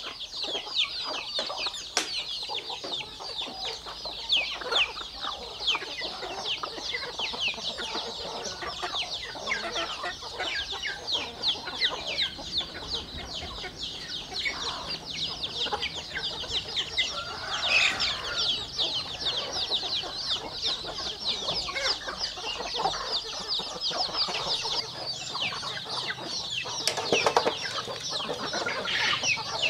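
A flock of chicks peeping constantly in a dense stream of short, high chirps, with hens clucking underneath. Louder calls stand out about two-thirds of the way in and again near the end.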